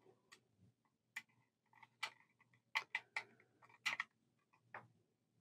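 Small screwdriver tightening the screw terminals on a motor speed controller's terminal block: about nine faint, irregular clicks and ticks.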